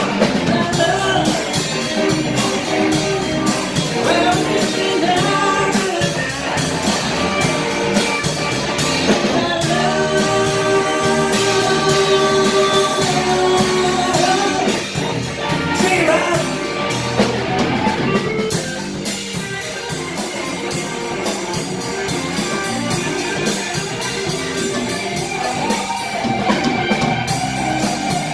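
Live rock band playing: electric guitars, bass guitar and drum kit, with a man singing lead vocals.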